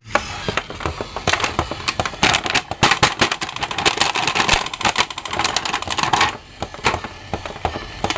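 Clear plastic toy packaging crinkling and crackling in the hands as an action figure is pulled out of its bag and blister card, a dense run of small clicks and rustles that thins out after about six seconds.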